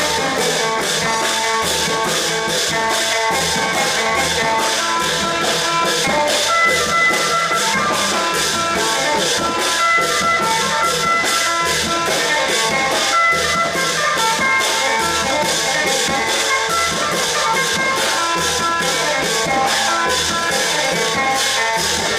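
Thai klong yao long-drum ensemble playing: a fast, steady drum and percussion beat under a high, sustained melody line.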